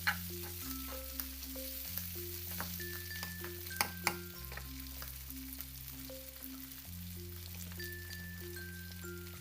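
Food sizzling and frying in a miniature pan, with a few sharp clicks of a utensil stirring against it, over light background music with a melody and bass line.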